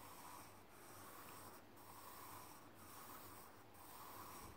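Faint scratch of a graphite pencil on paper drawing long horizontal lines back and forth, about one stroke a second.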